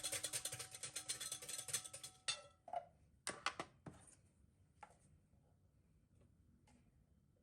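Background music with a quick, even beat that cuts off about two seconds in, followed by a few light knocks and clicks, the loudest a quick cluster a little over three seconds in, then fainter ones.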